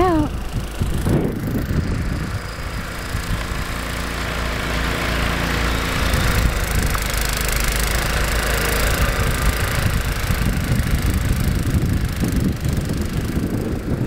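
A motor engine running steadily.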